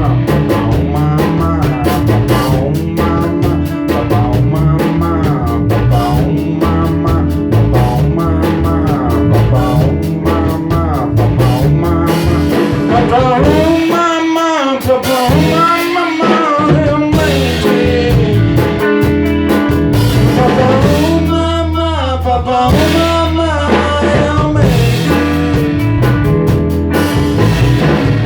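A band playing in rehearsal: a drum kit keeping a busy beat under bass and guitar. A lead line with wavering, bending notes comes in around the middle and again a few seconds later.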